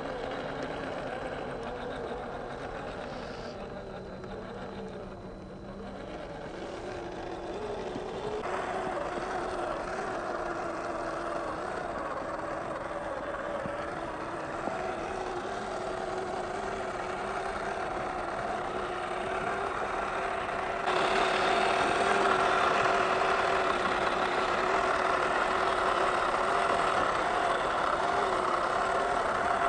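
WPL C24 RC truck's small brushed electric motor and gearbox whining as it drives, the pitch wavering up and down with the throttle. The sound changes abruptly twice and is louder for the last third.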